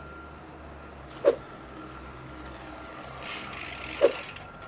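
Two sharp knocks, a little under three seconds apart, with a short hiss between them.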